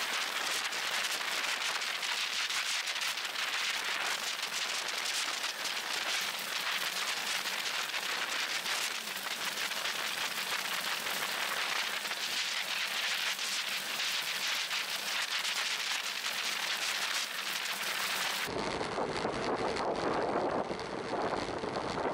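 Steady high rushing hiss of wind and tyre noise on a camera microphone riding along on a road bike at speed. Near the end it changes to a lower, fuller wind rumble.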